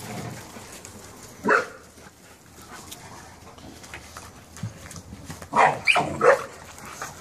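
Dogs barking while they play-fight: one sharp bark about a second and a half in, then a quick run of several barks near the end.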